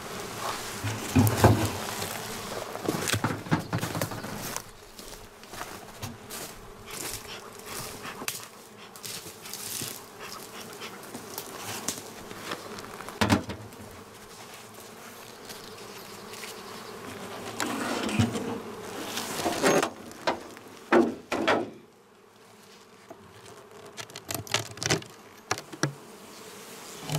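Honeybees buzzing around an open beehive, a steady hum, broken by a series of knocks and scrapes as the hive's metal-clad outer cover and wooden inner cover are handled and lifted off.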